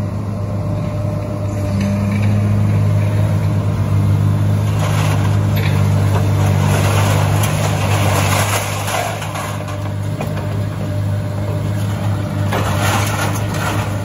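Tracked excavator's diesel engine running steadily at a working pace, with stretches of rattling, clattering noise about five seconds in and again near the end.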